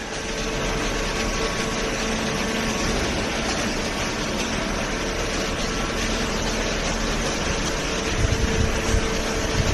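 Hydraulic paper baler running: a steady mechanical hum, with a few low thuds near the end.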